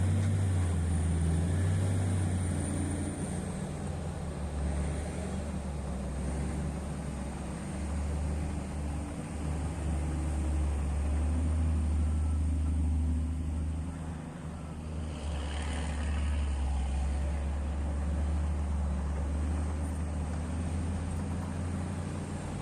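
Large diesel engine of heavy mining equipment running steadily with a deep, even drone. About two-thirds of the way in it briefly dips, then picks up again with a short rush of noise.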